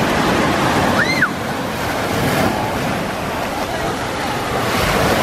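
Small waves breaking and washing up a sandy shore: a steady rushing surf that swells slightly near the end. A short high-pitched cry rises and falls about a second in.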